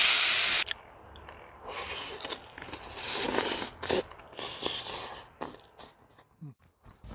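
Rack of lamb sizzling loudly in a hot pan, cut off abruptly about half a second in. Then a person biting into and chewing roasted lamb rib meat, in several uneven spells of crunching and chewing.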